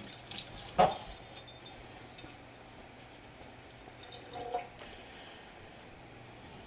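Cookware on a stovetop: one sharp knock a little under a second in, then a faint steady background with a brief small clink about four and a half seconds in.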